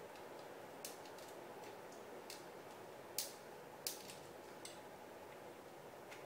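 Plastic parts of a 1/60 Perfect Grade Gundam RX-178 Mk-II model kit clicking and snapping as they are handled, about seven sharp clicks with two louder ones in the middle, over a faint steady hiss.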